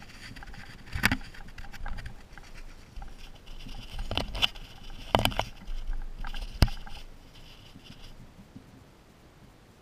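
Baby striped skunks nosing and brushing against a ground-level camera: fur rubbing and scratching over the housing, with a few sharp knocks as they bump it, the loudest about two-thirds of the way in. The rubbing dies down near the end.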